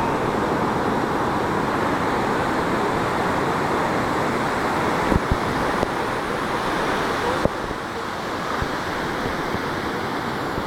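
Ocean surf breaking and washing up a sandy beach, a steady rushing, with a few short knocks about five and seven and a half seconds in.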